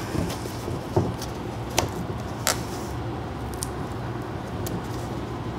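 Metal staples being pulled out of a cardboard box: a few sharp clicks about a second apart, over a steady low hum.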